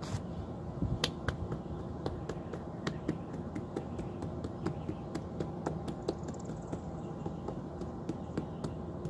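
Light, irregular clicks and taps, several a second, of fingers working at freshly set split-face travertine stone pieces on the wall, over a steady low background hum.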